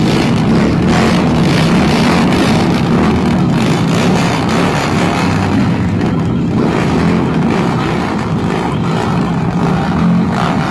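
Several cruiser motorcycle engines running together loudly and continuously as a group of bikes moves off.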